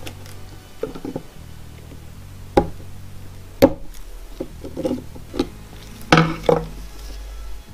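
A wire circlip and a pointed tool clicking and knocking against a piston as the circlip is worked into the wrist-pin groove: a few sharp clicks, the loudest about two and a half, three and a half and six seconds in, with smaller ticks between.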